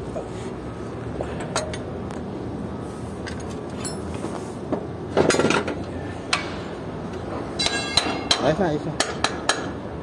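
Metal clinking and tapping as a steel hydraulic filter bowl is handled on a concrete pump, with a short loud scrape about five seconds in and a quick run of sharp, ringing clinks in the second half, over a steady low hum.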